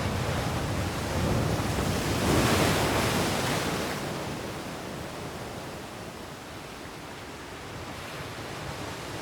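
Sea waves rushing and washing in a steady wash of noise, swelling to a peak about two and a half seconds in and then slowly dying away.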